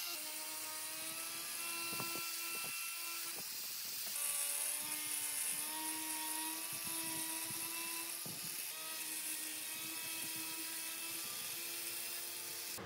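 Handheld angle grinder with a sanding disc running against the edge of a pine board, its motor whine wavering slightly in pitch as the disc sands the wood. A hiss rides over the whine and grows louder about four seconds in as the disc bites harder.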